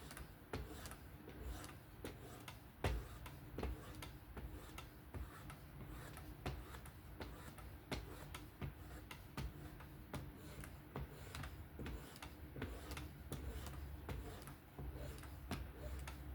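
Sharpening passes on a Work Sharp Professional fixed-angle sharpener at the final 0.5-micron stage: light, fairly even clicks, about two to three a second, as the abrasive arm is swept back and forth along the blade, over a faint low hum.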